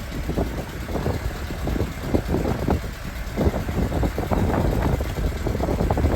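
Fishing boat's engine running at sea, a heavy, uneven low rumble.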